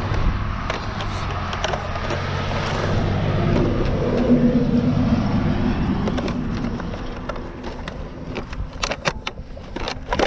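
A road vehicle passing by, swelling to its loudest about four seconds in and then fading. Near the end come a run of sharp clicks and rustling as the RC truck is handled in dry grass.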